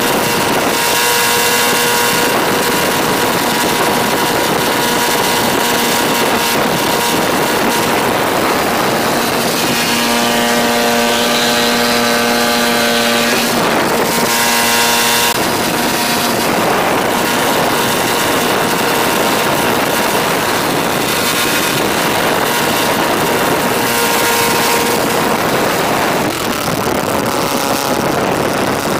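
DLE-222 four-cylinder two-stroke gasoline engine running at high power on a thrust test stand, spinning its propeller. It is very loud and steady throughout, with a clear engine note that stands out more strongly for a few seconds near the middle.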